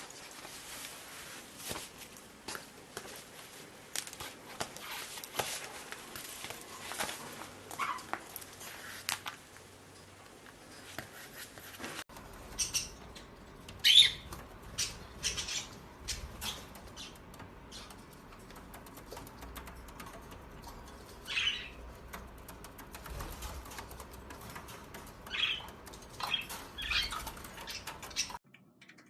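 Pet parrot making a few short, high chirps, scattered over the second half, with soft rustling and clicking in between.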